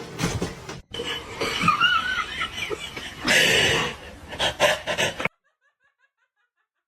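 People laughing hard in bursts, ending abruptly about five seconds in, followed by silence.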